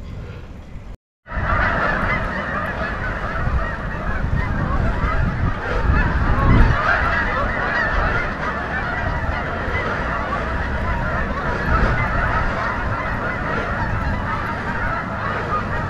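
Dense, continuous clamour of a large flock of birds calling at once, over a low rumble. It begins about a second in, after a brief drop to silence.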